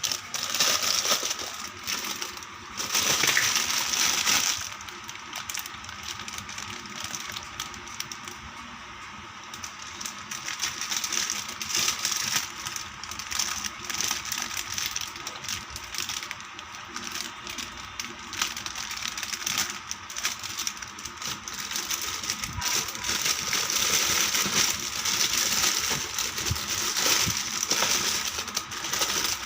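Small plastic toy kitchen pieces being unpacked and handled: irregular clicks, taps and clatter, with packaging crinkling.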